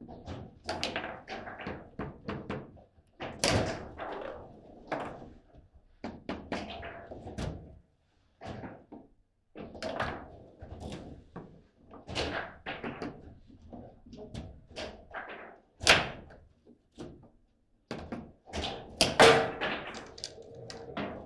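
Table football play: the ball is struck by the rod figures and the rods knock and thud against the table in quick, irregular hits. Two sharp hits near the end stand out as the loudest.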